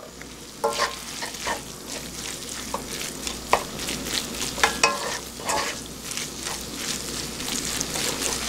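Fried rice sizzling in a nonstick frying pan as it is stirred and tossed with wooden utensils. Scattered scrapes and clacks of the wood against the pan sound over a steady sizzle.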